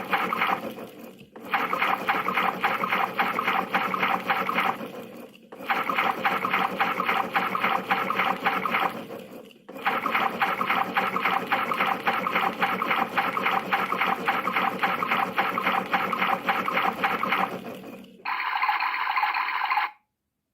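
Battery-powered toy washing machine playing its wash-mode sound effect: recorded water sloshing through a small speaker, repeating in stretches with short breaks. Near the end a different, higher sound plays briefly before it cuts off.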